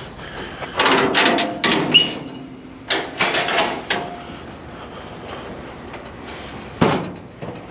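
Light metal scrap being handled, clanking and rattling in two short bursts of clatter, then one sharp knock near the end.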